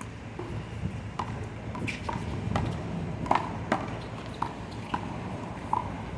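One-wall handball rally: a rubber handball struck by hand and slapping off the wall and court, about eight sharp smacks a half-second to a second apart, the loudest a little past three seconds in.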